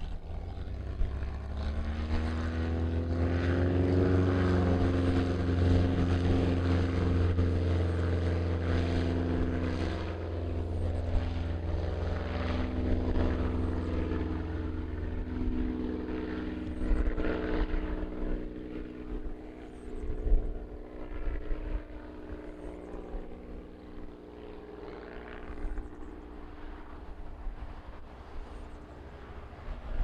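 Britten-Norman BN-2 Islander's twin propeller engines being run up to full power for takeoff: the pitch and loudness rise over the first four seconds, then hold steady and loud during the takeoff roll, and the sound fades from about halfway through as the aircraft moves away.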